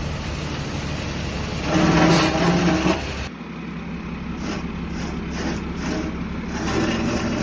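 Concrete mixer truck's engine running steadily, louder for about a second from roughly two seconds in; the sound changes abruptly a little past three seconds.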